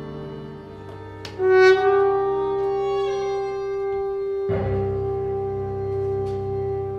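Trombone and string quartet playing classical-style music. A loud, held trombone note comes in sharply about a second and a half in and sustains over the strings, and the ensemble plays a fresh accent with a low, full entry about four and a half seconds in.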